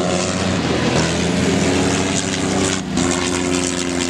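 Piston engine of a WW1 replica propeller aircraft running in flight during a display pass, a steady droning engine note that shifts in pitch about three seconds in.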